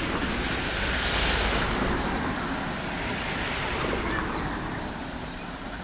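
Road traffic: a steady rush of passing vehicle noise, loudest about a second in and slowly fading.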